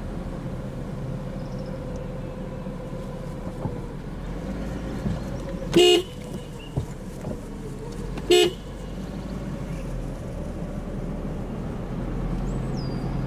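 Car horn honked twice, two short toots about two and a half seconds apart, over the car's steady running hum.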